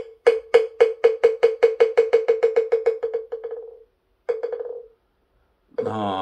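Moktak (Korean wooden fish) struck once, then rolled in fast strokes that speed up and fade away over about three seconds, followed by a short fading roll: the customary signal that opens a Buddhist chanting session. A chanting voice begins near the end.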